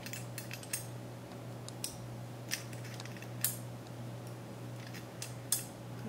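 Pliers clicking and clinking against a metal mounting post as it is screwed into a Koolance CPU water block back plate: irregular sharp metal clicks, about nine of them, over a steady low hum.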